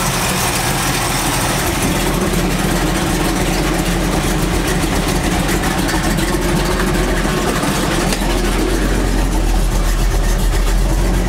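Car engine idling steadily with the battery disconnected, running on its alternator alone, a test of whether the alternator is charging; the low hum grows a little stronger near the end.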